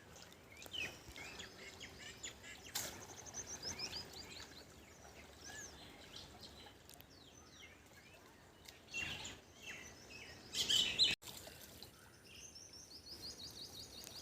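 Wild birds chirping faintly in quick runs of short repeated notes, against outdoor background noise. A couple of brief, louder noisy sounds come about two-thirds of the way through.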